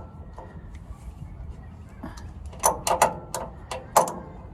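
Hand tools knocking and clinking on the truck's steel steering parts: a few light taps, then a quick run of about six sharp metallic clanks a little after halfway through.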